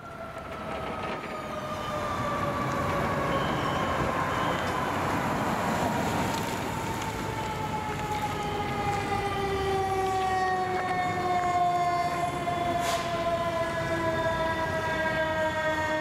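Fire apparatus siren sounding a long wail that falls slowly and steadily in pitch, over the rumble of traffic.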